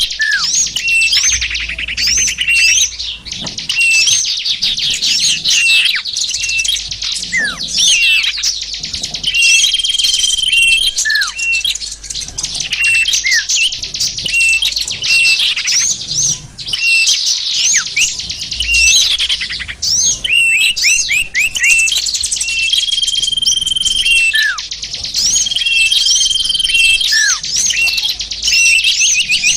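Bird-lure (pikat) recording of many small songbirds calling at once: dense high chirps and rapid trills over repeated short, steady whistles, with single notes dropping sharply in pitch every few seconds.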